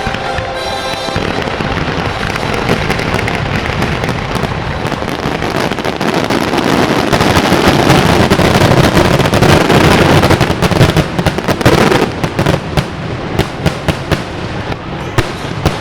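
Fireworks barrage: a dense run of rapid bangs and crackles that builds to its loudest about eight to twelve seconds in, then thins to scattered separate bangs.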